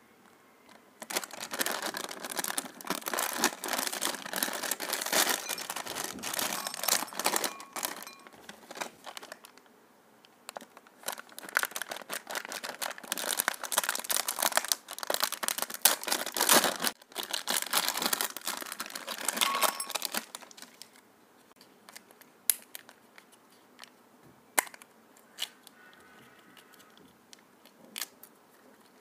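Plastic snack packets crinkling and tearing as they are opened by hand, in two long spells of dense rustling. In the last third only a few scattered light clicks and taps as small wrappers are handled.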